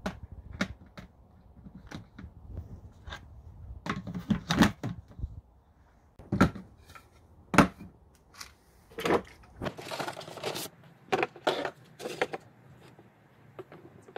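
Irregular knocks and clatters as wooden boards and a plastic planter pot are set down and shifted on a hard plastic box lid, with a few louder thuds among lighter clicks.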